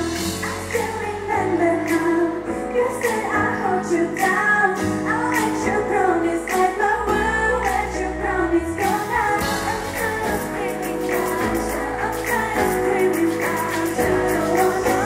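Thai girl-group pop song with female vocals over a bass-heavy backing track, played loud at a live stage show.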